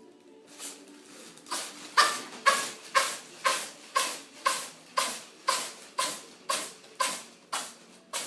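A cat sneezing in a long unbroken fit: one sneeze, then about fourteen sharp sneezes in a row at an even pace of roughly two a second.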